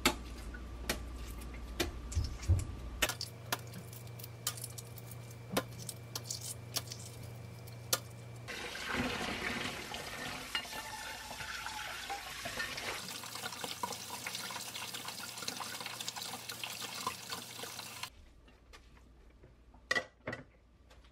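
Water pouring and running into a sink through a metal strainer as boiled brown-rice noodles are drained and rinsed in cold water. It comes after a string of light clicks and taps and stops a few seconds before the end.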